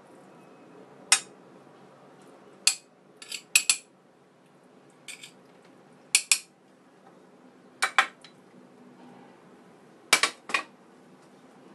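Steel knife clinking against a ceramic plate while cutting pan-fried abalone: about a dozen sharp clinks, several coming in quick pairs.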